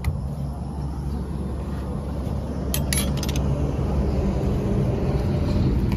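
Motor vehicle running: a steady low engine and road rumble that grows a little louder, with a short run of sharp clicks about three seconds in.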